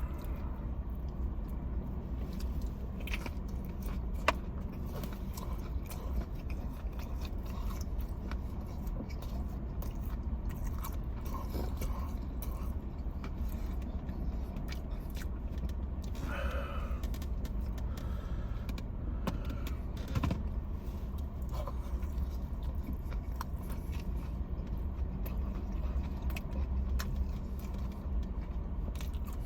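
Close-up eating of fried chicken: chewing and biting with scattered small clicks, scrapes and crunches, over a steady low hum inside a car.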